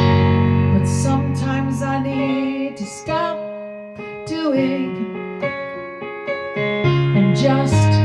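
Keyboard music in an electric-piano sound playing held chords over a deep bass note. The bass drops out about three seconds in and comes back near the end.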